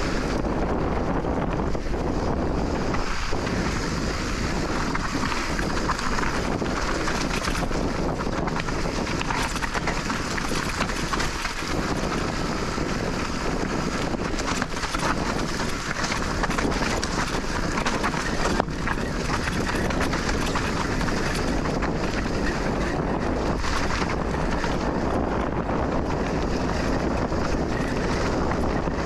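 Steady wind rushing over the microphone of a mountain biker on the move, with one sharp knock about two-thirds of the way through.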